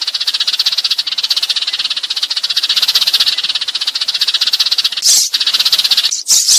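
Sparrows chattering in a dense, very rapid run of chirps, with louder, higher calls breaking in about five seconds in. It is a sparrow-call lure track of the kind played to draw sparrows to traps.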